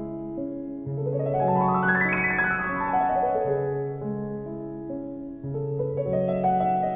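Background piano music: a rippling run of notes climbs and falls back about two seconds in, over held low notes.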